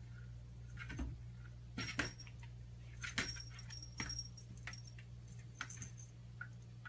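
Small bell on a cat's collar jingling in short bursts as the cat stretches up and paws at a closet door, with light knocks of its paws against the door. The loudest jingles come about two and three seconds in.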